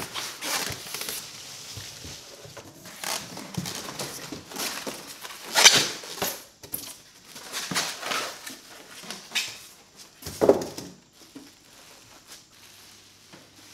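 Packaging being handled as a three-burner drop-in cooktop is unboxed: clear plastic wrap crinkling, styrofoam end caps rubbing and cardboard flaps shifting, in irregular rustles. The loudest comes about six seconds in, with another sharp one about ten seconds in.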